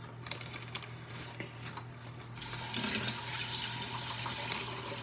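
Light clicks and scrapes, then about halfway through a steady hiss of running water starts and keeps going.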